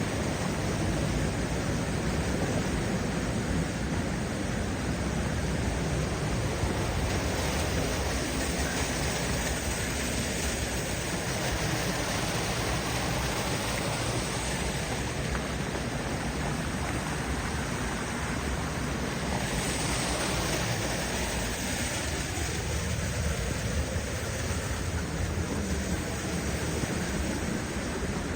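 Steady rushing of creek water, an even hiss with no breaks.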